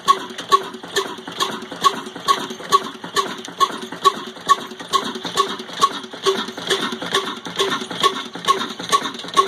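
Old single-cylinder Ruston Hornsby diesel engine running steadily under load while driving a chakki flour mill, with an even, heavy beat a little over twice a second and a ringing clank on each beat.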